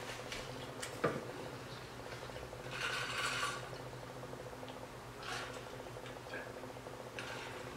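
Insulated stainless-steel water bottle being handled and drunk from: a sharp click about a second in, a short scraping twist of the lid around three seconds, then a few quiet drinking sounds, over a steady low hum.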